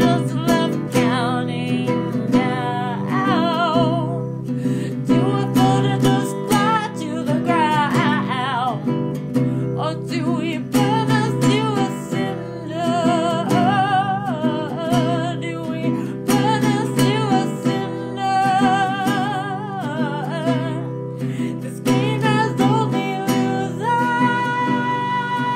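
A song: a singing voice with vibrato over strummed guitar accompaniment, ending with a long held note.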